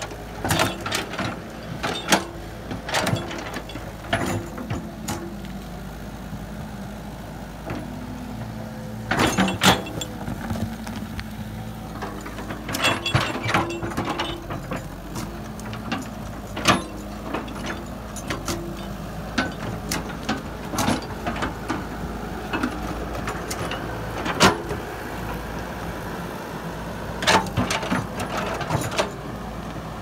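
Caterpillar crawler excavator's diesel engine running steadily, with frequent sharp clanks and knocks from the machine's tracks and bucket as it works and moves.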